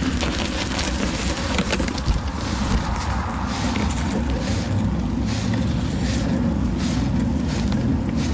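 Low, steady rumble of wind and rolling noise on a moving action camera's microphone, with frequent small clicks and knocks, likely from the mount rattling over the road surface.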